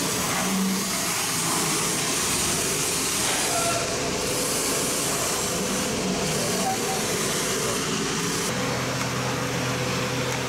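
Steady machine noise in a workshop: an even, loud hiss with a low hum and a faint steady tone underneath, from running machinery such as the CNC router's pumps or extraction.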